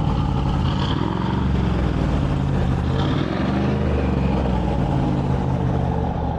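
Rover V8 engine in a TVR M-series car running, with a steady low exhaust note.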